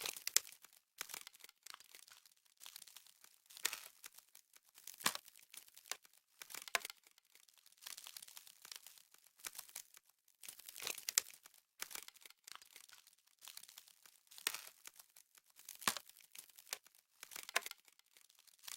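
Frost crackling and crunching in short, irregular crisp bursts, about one every second or two, mostly high in pitch.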